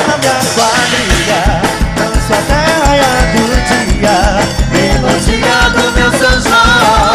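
Upbeat northeastern Brazilian forró music, with an accordion melody over a steady bass drum beat of about two beats a second.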